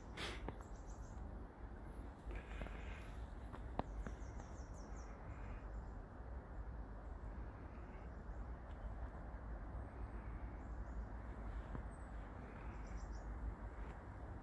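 Small woodland birds chirping in short, high, rapid series, near the start, for a few seconds after that and again near the end, over a steady low outdoor noise. A sharp click right at the start and another about four seconds in.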